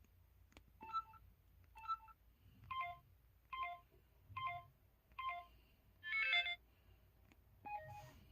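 MS600 mobile phone keypad button sounds: eight short electronic chimes, each a quick run of two or three notes, about one every 0.8 s, with a fuller, louder one about 6 s in.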